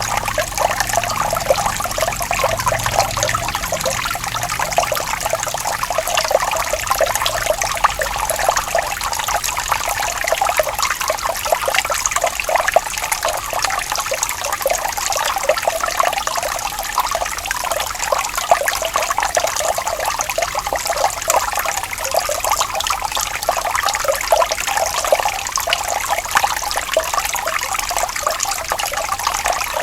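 Running water, a steady dense trickling and splashing with no break.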